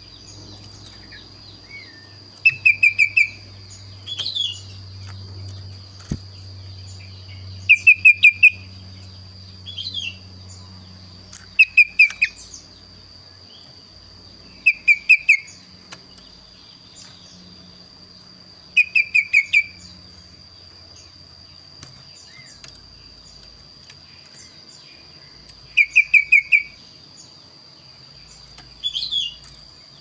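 Kaso-kaso songbird singing: a short, rapid run of five or six clear notes, repeated every three to four seconds. A few higher single calls come in between.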